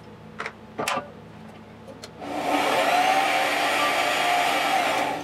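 Two light clicks. Then, about two seconds in, a small bench metal lathe's motor and gearing start up with a rising whine as the chuck comes up to speed. It runs steadily for about three seconds and stops near the end.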